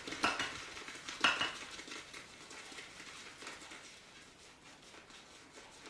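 Shaving brush whisking shave cream into lather in a shave scuttle, the bristles swirling and scraping against the bowl. Two louder strokes in the first second and a half, then fainter, steady strokes.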